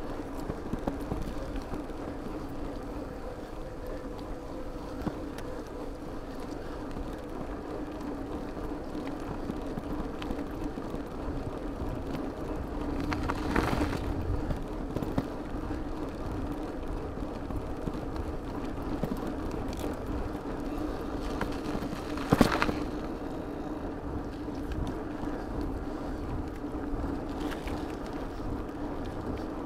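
Bicycle riding along a gravel road and then asphalt, heard from the handlebars: steady tyre and riding noise with a low hum throughout. A louder rush about 13 seconds in, and a single sharp knock about 22 seconds in.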